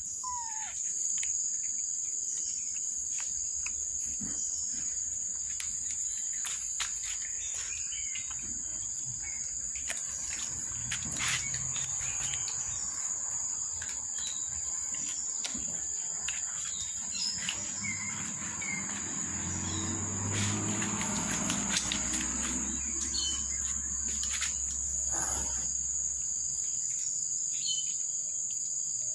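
Kittens eating shredded meat from a plastic tray, with many small wet chewing and smacking clicks, over a steady high insect drone and a few bird chirps. A low rumble comes in about halfway through and fades a few seconds before the end.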